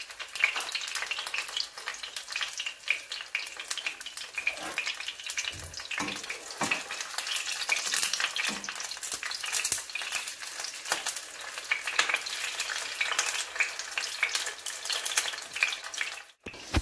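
A stuffed bottle gourd leaf sizzling and crackling in shallow oil in a nonstick frying pan. A flat spatula presses and moves it against the pan now and then, giving a few soft knocks.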